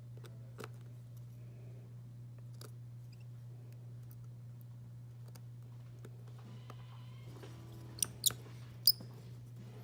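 Small clicks and taps of hand tools and phone parts being handled during a smartphone repair, with three sharp louder clicks near the end, over a steady low hum.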